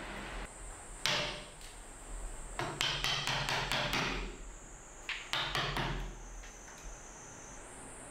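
Wood-carving chisel cutting into a wooden Buddha statue: sharp taps, each with a short scraping cut. They come singly about a second in, in a quick cluster around three to four seconds in, and again near six seconds.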